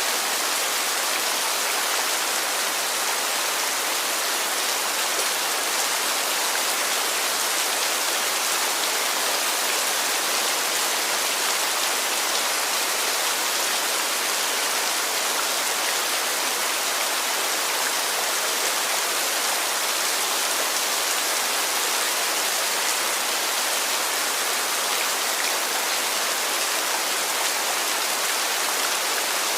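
Heavy rain falling steadily, a dense even hiss with no separate drops or thunder standing out.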